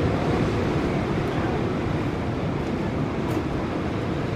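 Steady low background noise of ocean surf and wind, even throughout, with no distinct knocks or clicks.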